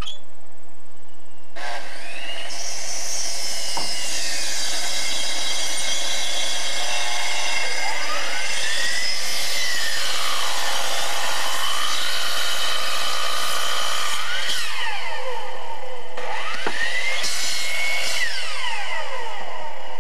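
Electric miter saw cutting wooden posts. The motor starts about a second and a half in, and its whine sags and recovers as the blade goes through the wood. It winds down, starts up again, and winds down once more near the end.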